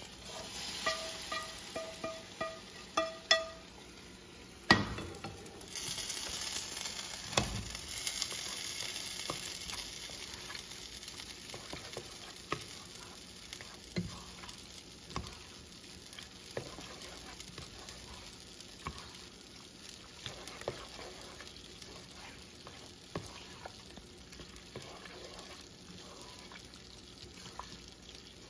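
Metal cookware clanks several times with a ringing tone as taco meat is scraped from a skillet into a pot, then a sharper knock. Food sizzles in the pot while a spoon stirs the ground beef, tomatoes and macaroni and cheese, with scattered scrapes and taps against the pot.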